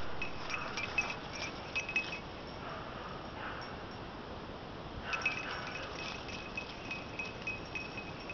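Small bell, of the kind worn by hunting dogs, ringing in quick irregular jingles: a spell over the first two seconds and another from about five seconds in, over steady outdoor hiss.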